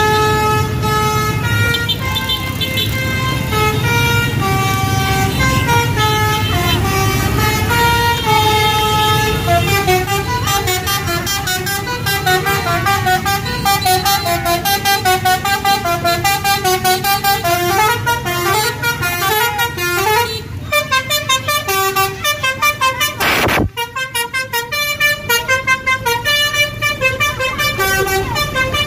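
Bus telolet basuri multi-tone horn playing a tune: a run of stepped horn notes, slower at first and quicker and shorter from about ten seconds in.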